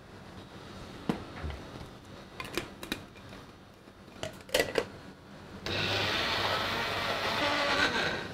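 A few clicks and knocks as the blade lid is screwed onto a plastic personal-blender cup and the cup is set on its base. About six seconds in, the personal blender's motor starts and runs steadily, chopping shiso leaves in olive oil for a purée.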